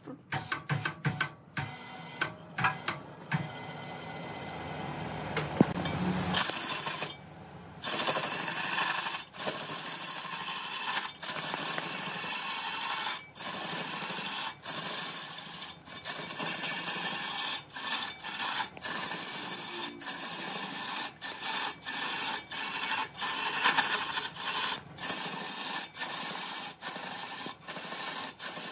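Wood lathe: a turning tool cutting into spinning wood, making a steady hissing scrape. It sets in about six seconds in after a few knocks and is broken by many brief gaps.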